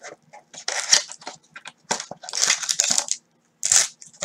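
Foil trading-card pack wrappers crinkling and tearing as they are handled, in three short rustling bursts.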